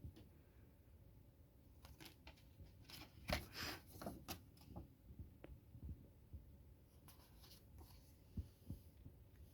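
A DVD case and its packaging being handled: quiet scattered clicks and short rustles, with the loudest bunch about three and a half seconds in.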